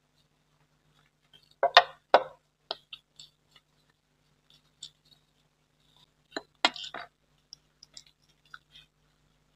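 Food and dishes handled at a table of glass bowls and plates: scattered sharp clinks and taps, the two loudest about two seconds in and another cluster near seven seconds, with faint ticks between.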